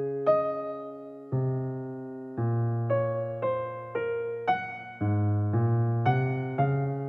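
Background music: a gentle keyboard piano tune of single struck notes over low bass notes, each note fading away, slow at first and then about two notes a second from a couple of seconds in.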